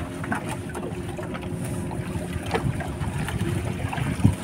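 Fishing boat's engine running steadily at low speed, with wind buffeting the microphone and scattered small knocks and rustles as the net is hauled aboard by hand.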